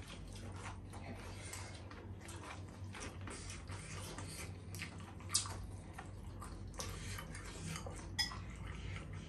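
Close-miked eating: chewing and wet mouth sounds over soft noodle soup and fried chicken patties, with scattered clicks and clinks of utensils against a glass bowl and plate. One sharper click comes about five seconds in, and another near the end.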